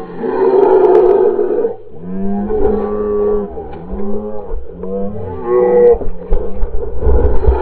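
Several men yelling and hollering in long, wavering wordless cries, a reaction to sitting in ice-cold water in a hole cut in a frozen lake.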